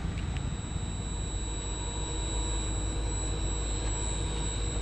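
Regional passenger train approaching in the distance: a steady high-pitched whine over a low rumble.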